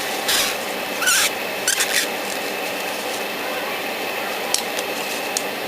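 Airbrush spraying in three short hissing bursts over a steady background hiss, followed by a few light clicks.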